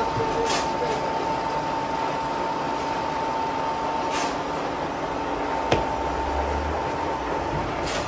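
Workshop machinery running steadily with a constant high-pitched hum, broken by a few short scraping noises and one sharp click about three-quarters of the way through.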